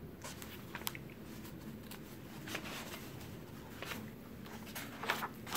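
Soft rustling and a few light clicks of a picture book's paper pages being handled and turned.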